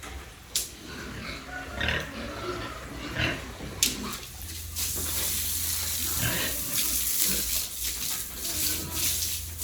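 Pigs grunting in short, irregular bursts, with a couple of sharp clicks. A steady hiss comes in about halfway through and runs on beneath the grunts.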